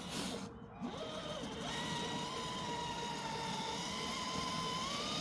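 Electric drive motor of a 1/6-scale Rlaarlo MK07 Rubicon RC car whining as it drives, a steady high whine that climbs slightly near the end, after a short drop-out about half a second in.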